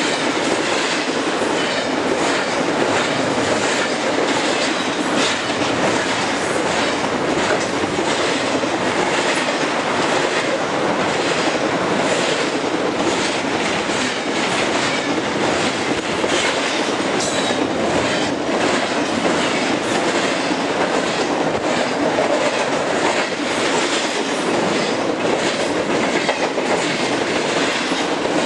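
Freight train's cars rolling past at speed at close range: a steady loud rattle and rumble, with wheels clacking irregularly over rail joints.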